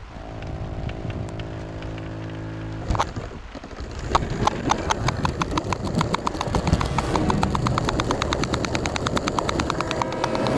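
Hornby 00 gauge model train running along its track, heard from a camera riding on its front. A steady hum lasts about three seconds and ends on a sharp click. Then comes a rapid, even clicking of the wheels over the rail joints that grows louder.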